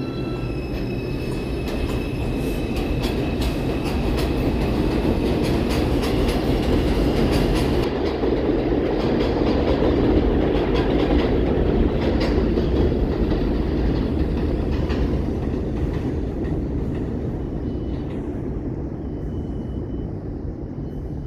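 R142 subway train running on the elevated steel structure: a heavy rumble with wheels clattering over rail joints, loudest around the middle. A brief high squeal comes near the end.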